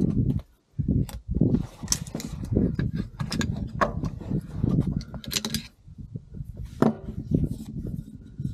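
CQ-A M4-type carbine being field-stripped by hand: several sharp metallic clicks and clacks as the bolt carrier group and charging handle come out and steel parts are handled and laid on a wooden bench, over a low rumble.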